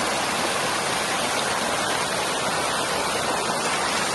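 A waterfall: a steady, loud rush of falling water.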